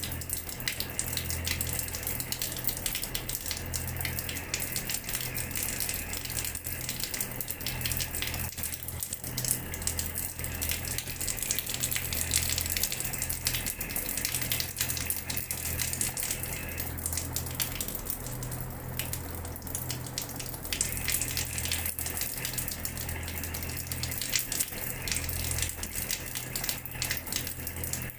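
Water running from a tap and splattering onto a hard floor, a steady rush full of small irregular splashes, with a low steady hum underneath.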